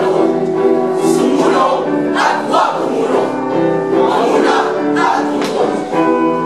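A chorus of teenage boys' voices singing together in unison as part of a choral recitation, holding long notes.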